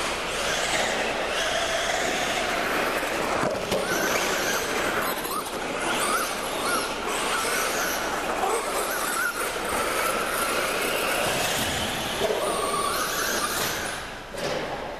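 Small high-revving racing engines running, their pitch rising and falling as they speed up and slow down, over a steady noisy background. The sound dips briefly near the end.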